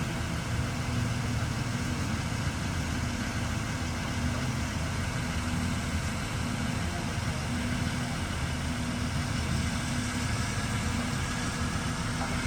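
A large engine idling steadily, a low even hum with no change in pitch.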